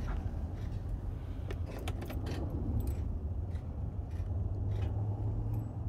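Keys jangling and clicking on the key ring at a Kenworth semi truck's ignition as the key is handled, over a steady low rumble.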